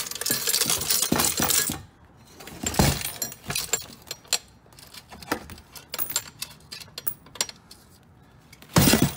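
Quarters spilling and clinking out of a broken-open payphone, a jingling rush for about the first two seconds, then scattered clinks and knocks, with a loud clatter near the end.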